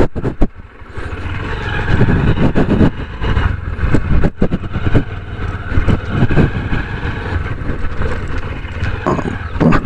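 Honda SP125 motorcycle being ridden, its single-cylinder engine running under a steady rumble, with many irregular knocks and thumps from the ride.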